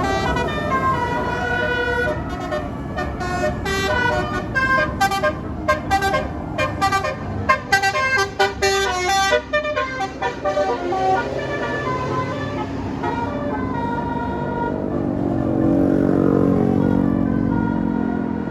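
Basuri telolet multi-tone air horn on a bus playing a quick melody of short stepped notes for about ten seconds. Near the end, the bus's engine and road noise swell as it passes.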